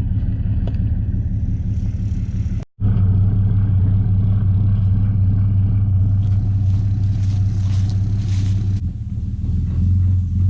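Diesel engine running steadily with a deep rumble. It cuts out abruptly for a split second almost three seconds in, then carries on slightly louder.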